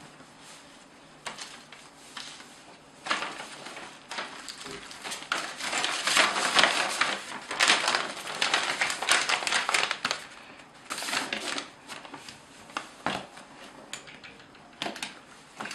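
Paper rustling and crinkling as banknotes and a brown paper envelope are handled, building from about three seconds in and loudest in the middle. Later a few separate taps and short rustles as a leather briefcase is closed.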